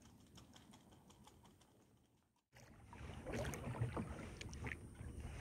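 Small clicks and knocks from fishing gear being handled on a kayak. They are faint at first, then louder after a brief gap about two and a half seconds in.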